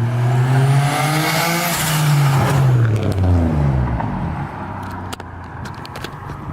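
Turbocharged car engine revved once. The pitch climbs for about two seconds with a rising turbo whistle, then the revs fall away with a hiss from the HKS blow-off valve venting as the throttle closes. It settles back toward idle about four seconds in.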